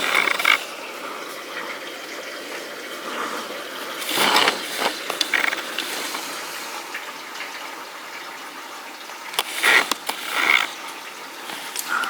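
Steady rain falling, an even hiss, with a few brief louder rushes near the start, around four seconds in and around ten seconds in.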